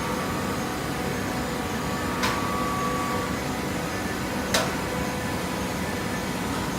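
Machinery running with a steady hum, and two sharp metallic clanks, about two seconds in and again about four and a half seconds in.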